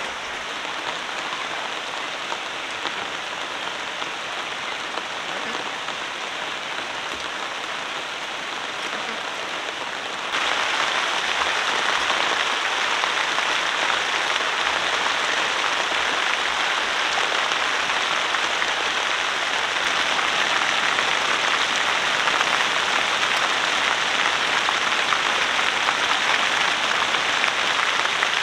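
Steady hiss of rain falling, which steps up abruptly about ten seconds in and stays louder.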